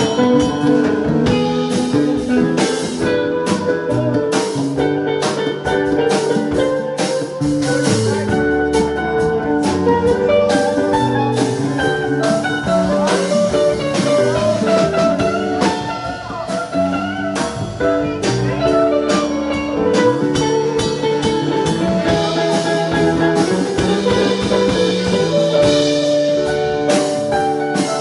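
Live band playing an instrumental passage on electric guitars, electric bass, drum kit and keyboard, with held melodic notes over a steady beat.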